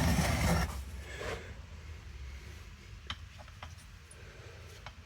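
Scraping and rubbing of hands and parts being handled on a workbench for about the first second and a half, then a few faint small clicks.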